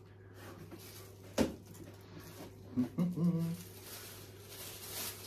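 Quiet handling of an electric grill, with one sharp knock about a second and a half in and a short hummed vocal sound near the middle, over a low steady hum.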